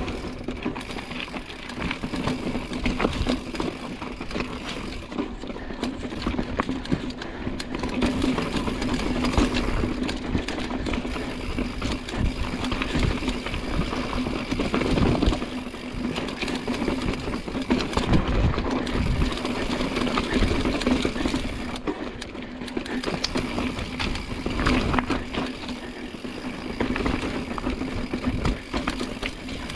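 Mountain bike descending rough, rocky ground, its frame and parts rattling and clattering over a constant rush of tyre noise. A steady hum runs underneath.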